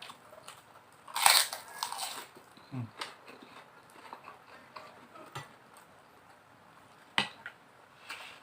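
Close-up biting and chewing of fried crackers: one loud crunch about a second in, then quieter crunches and mouth clicks while chewing.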